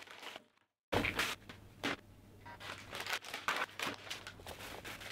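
Paper and plastic sterile packaging rustling and crinkling as it is unwrapped and laid out on a steel trolley, with several sharp crackles scattered through. The sound cuts out completely for about half a second near the start.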